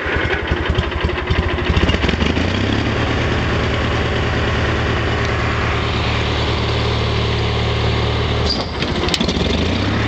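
Snapper Z2004K zero-turn mower's 20-horsepower Kohler Magnum engine running just after starting, with the blades not yet engaged. It picks up speed about two seconds in and then runs steadily, with a brief dip near the end.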